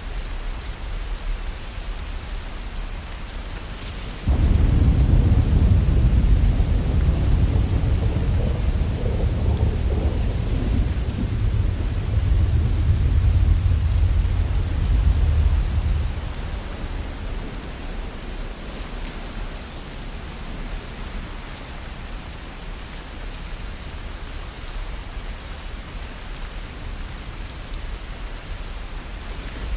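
Steady heavy rain, with a long low rumble of thunder that starts suddenly about four seconds in and fades out around twelve seconds later.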